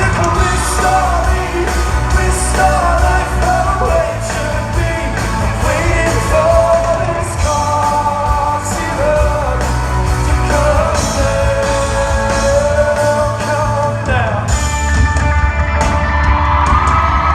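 Live band playing a rock song with singing over a steady, heavy bass.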